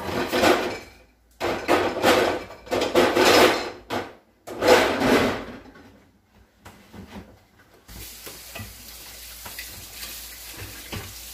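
Metal pots, pans and lids clattering and scraping in a run of loud bursts, then a steady low hiss from about eight seconds in.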